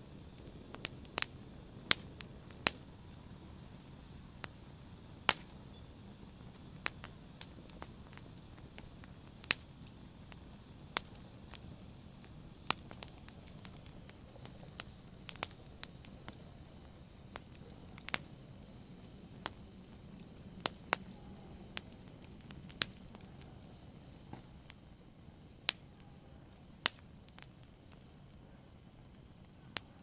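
Wood fire burning in a fireplace: a low steady hiss and rumble of the flames, with sharp irregular crackles and pops from the logs, one to three a second.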